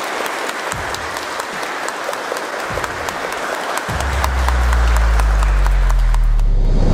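Church congregation applauding steadily. About four seconds in, deep sustained musical notes come in under the clapping and the sound grows louder.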